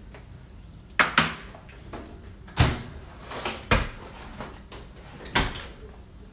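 A series of six or so sharp clacks and knocks over a few seconds: a microwave door being handled and bowls of melted chocolate being set down on the kitchen countertop.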